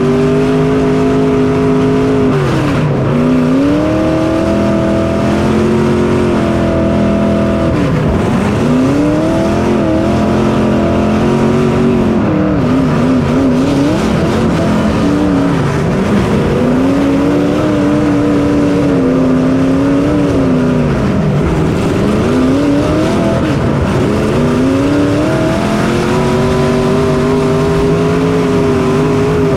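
Race car's engine heard onboard, revving up on the straights and dropping in pitch as the driver lifts for each turn, rising and falling every few seconds lap after lap.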